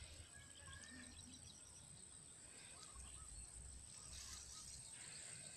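Near silence: faint rural outdoor ambience with a few faint bird chirps over a steady high hiss and low rumble.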